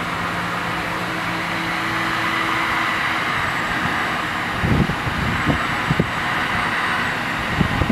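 Steady hiss of a self-serve car wash foam brush spraying soapy water, with a few dull low thumps in the second half.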